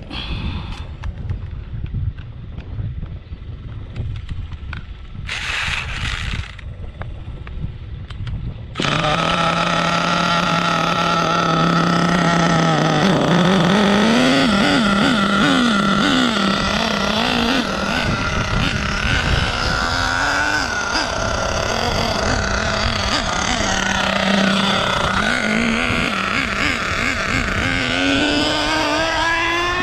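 Small .46 nitro engine of a Savage X 4.6 RC truck: after a low rumble, it comes in loud and high-pitched about nine seconds in, runs steadily, then revs up and down with the throttle and climbs in pitch near the end.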